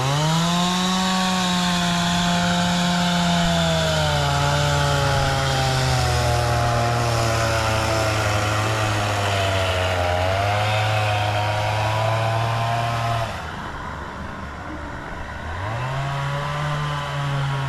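A small engine revving up and running hard, its pitch stepping down a couple of times. It falls away about thirteen seconds in, then revs up again near the end.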